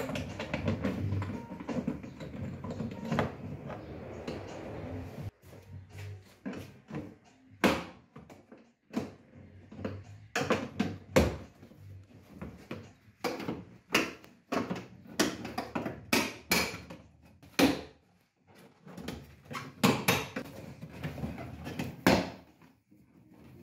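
Plastic trim panel being pried off the inside of an Audi A3 8P tailgate. Rubbing and handling noise for the first few seconds, then a string of irregular sharp clicks and knocks as the panel's retaining clips pop loose and the plastic is pulled and flexed.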